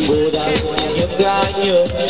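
Dance music: a melody with quick pitch bends and ornaments over a dense accompaniment and a steady beat.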